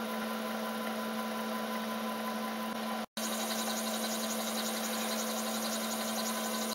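Bridgeport-style milling machine running steadily, its spindle motor giving an even hum with no crunch of cutting. The sound drops out for an instant about three seconds in.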